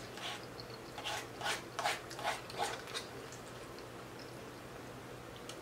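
A person chewing a mouthful of spaghetti, with about six soft, wet mouth smacks in the first three seconds.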